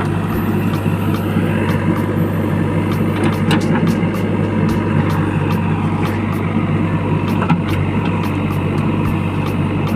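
A steady engine-like drone with a low hum, overlaid by a run of light, uneven clicks.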